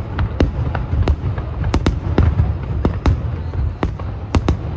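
Fireworks display: aerial shells bursting in a rapid, irregular series of sharp bangs, about three a second, over a continuous low rumble.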